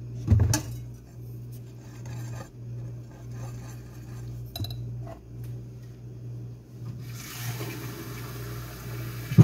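Wire whisk clinking and scraping against a glass mixing bowl while stirring pancake batter, with a sharp clink about half a second in and a loud knock at the end. A steady hiss runs through the last two seconds over a low hum.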